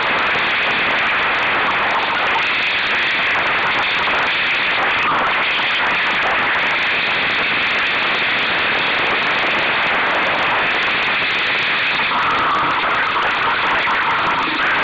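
Steady rushing of wind and water as a Solo sailing dinghy sails through choppy water, even and unbroken throughout.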